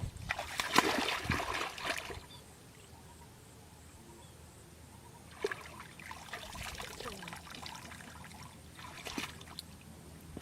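Water splashing, loudest in the first two seconds, then trickling and dripping with more splashes from about five seconds in.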